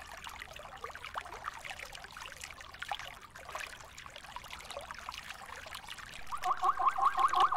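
River water splashing and trickling as zebras wade through the shallows. Near the end a louder, fast, even pulsing sound starts, about five pulses a second.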